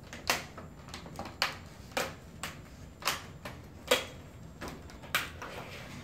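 Plastic screen bezel of an Asus F554L laptop being pressed back onto the lid, its clips snapping into place: about half a dozen sharp clicks at uneven intervals, with fainter ones between.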